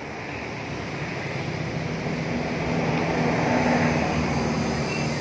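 Background vehicle noise: a steady rushing with a low engine hum, swelling about halfway through and easing off slightly.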